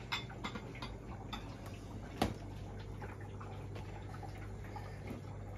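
Faint clicks and taps of fingers and food against a ceramic plate as rice and meat are mixed and eaten by hand, with one sharper knock about two seconds in, over a steady low hum.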